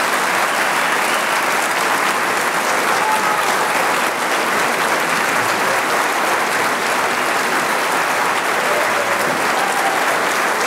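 Large audience applauding steadily at the close of a speech, a standing ovation of many hands clapping at once.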